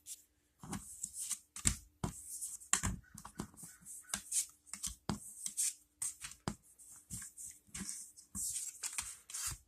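Yu-Gi-Oh trading cards being handled and slid one past another from a freshly opened booster pack: irregular rustles and papery flicks, with a few sharper snaps.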